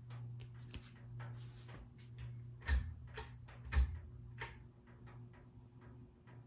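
Hampton Bay Jericho ceiling fan running with a steady low motor hum and irregular ticking clicks, a few louder knocks in the middle.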